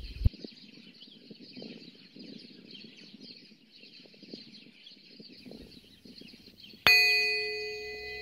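A singing bowl struck once near the end, ringing out with several steady tones that slowly fade. Before it only a faint background hiss.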